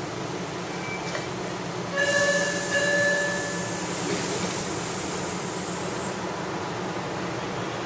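MBTA Blue Line 0600-series subway train at the platform, running with a steady hum. About two seconds in, a high-pitched warning signal sounds in two short parts with a hiss of air, and the train then pulls out.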